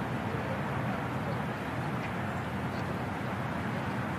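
Steady low background noise with faint, indistinct voices.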